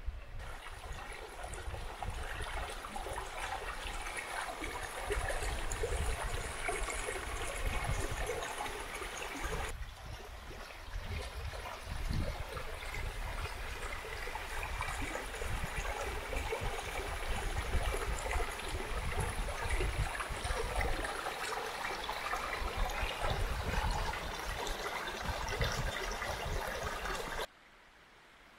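Small mountain stream running and trickling over rocks, a steady rush of water with a low rumble underneath. It dips briefly about a third of the way in and cuts off suddenly near the end.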